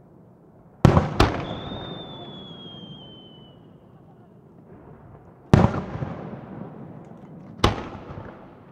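Kagiya aerial firework shells bursting: two sharp bangs close together about a second in, then a high whistle that slowly falls in pitch, then two more bangs a couple of seconds apart, each trailing off in a long echo.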